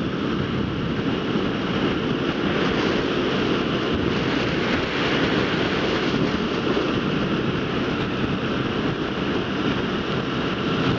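Steady rush of strong wind buffeting the microphone of a Kawasaki KLR650 rider at road speed, over the bike's single-cylinder engine running at cruise.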